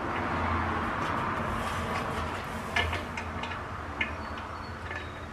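Small metal and plastic clicks and taps of ceiling fan mounting hardware being handled and fitted by hand, with a few sharp ticks from about three seconds in, over a steady low hum.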